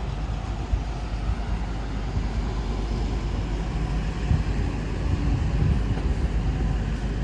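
City street noise on a rainy day: traffic running on wet asphalt over a steady hiss of rain, with a constant low rumble.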